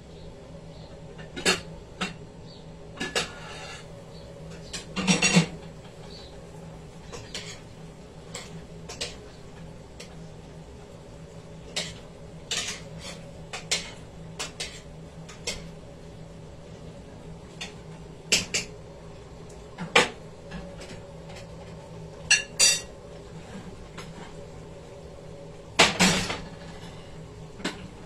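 Kitchen clatter: scattered clinks and knocks of pots, a lid and metal utensils being handled, some in quick pairs, over a steady low hum.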